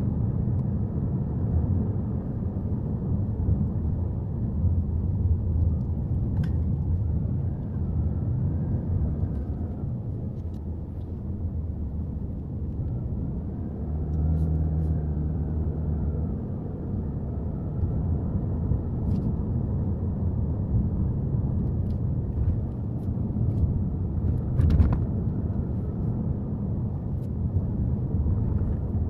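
Subaru Forester driving uphill, a steady low road and engine rumble heard from inside the cabin. A faint engine hum rises near the middle, and a short knock comes near the end, like a bump in the road.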